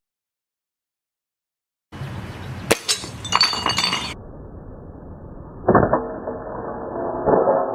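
After about two seconds of dead silence, a sharp crack as an air rifle pellet strikes a thick ceramic floor tile, followed by brittle clinking and rattling as the tile breaks. Then a duller, muffled stretch with two heavy thuds.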